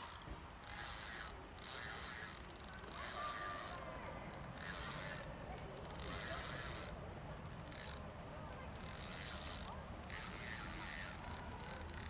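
Spinning reel being cranked to wind in a fishing line, its gears turning in spells with short pauses between.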